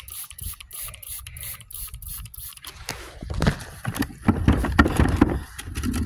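Aerosol bug spray can hissing faintly. About three seconds in, rustling, knocks and thumps of the phone being handled and swung about take over.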